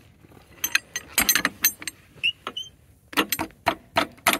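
Metal clicks and clanks of a sawmill's steel log clamp (a log dog) being worked and set against the log. A cluster of sharp clanks comes about a second in, and a quicker run of them in the last second and a half.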